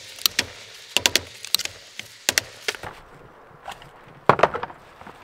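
Hammer tapping a flathead screwdriver wedged between a Porsche 944 Turbo CV joint and its pressed-on metal boot housing: sharp metallic taps in quick groups of two or three, driving the housing off the bearing. A last, louder cluster of knocks comes about four seconds in.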